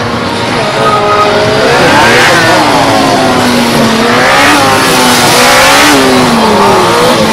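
Honda CBR600RR's inline-four engine pulling away about a second in, then revving up and dropping back again and again as the bike accelerates and brakes between tight turns.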